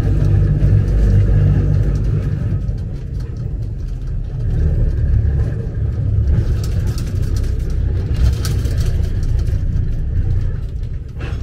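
Gloria line funicular car rolling downhill on its rails, heard from on board: a steady low rumble, with scattered brief high-pitched clicks and rattles from the running gear about halfway through.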